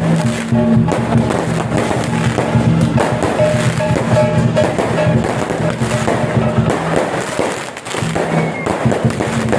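Fireworks popping and crackling in quick succession, with loud music playing underneath.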